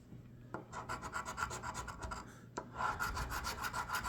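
Scratch-off lottery ticket being scratched in quick, even back-and-forth strokes. It starts under a second in, stops briefly with a click a little past halfway, then carries on.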